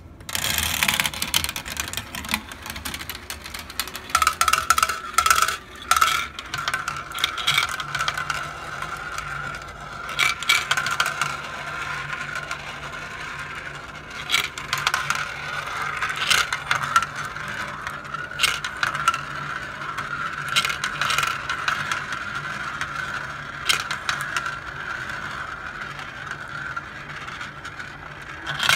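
Glass marbles rolling around the plastic funnel bowls and track of a toy marble run: a steady rolling whir with frequent sharp clicks as marbles knock together and drop through the bowls.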